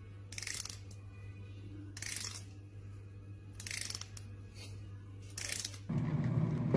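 A plastic comb drawn through a cat's fur in four short raspy strokes, about a second and a half apart, over a steady low hum. A louder steady noise takes over near the end.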